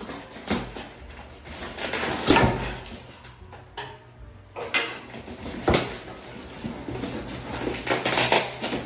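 Packing tape being ripped off a cardboard box in several short, noisy tears, and the box being shifted and stood upright.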